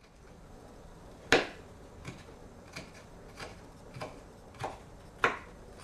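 Large kitchen knife chopping garlic on a wooden cutting board: seven knife strikes about two thirds of a second apart, the first and the last the loudest.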